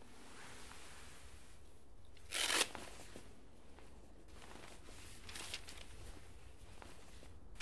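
A fabric bag being opened and rummaged through, with rustling of cloth and paper and one short, loud rip about two and a half seconds in.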